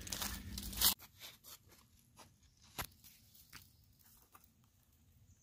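Crinkling, rustling noise for about a second that cuts off abruptly, then a quiet stretch with scattered faint clicks and ticks, one louder click nearly three seconds in.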